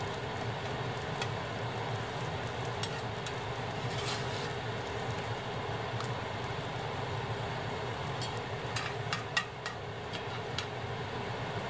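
Egg sizzling in a cast-iron skillet, with a slotted metal spatula clicking and scraping against the pan as the egg is flipped and pressed; a quick run of clicks comes near the end.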